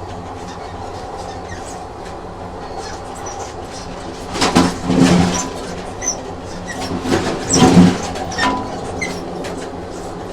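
Train running on rails: a steady rumble with a low hum, rising to two louder, rougher spells about four and a half and seven and a half seconds in.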